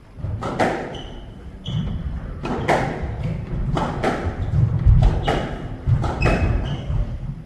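Squash rally: sharp cracks of the ball off rackets and walls about once a second, with short high squeaks of court shoes and low thuds of feet on the wooden floor.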